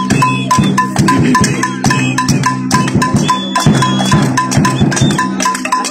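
Rhythmic clanging of metal struck by hand, about three to four strikes a second, each with a short ringing tone, over a steady low hum.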